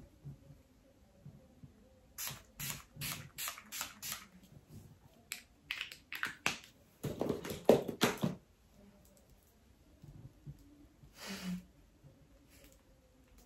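A pump spray bottle of makeup spray spritzed in a quick run of about ten short hissing puffs, followed by a few louder puffs just past halfway and a single one near the end.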